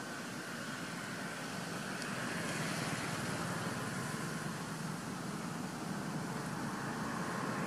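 Steady rushing outdoor background noise with a faint hum, growing a little louder about two and a half seconds in.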